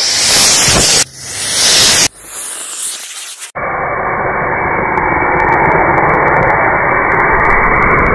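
Hissing thrust from the smoking pipe motor of a homemade rocket-powered toy car, in abrupt segments for the first few seconds, then a steady, duller rushing hiss.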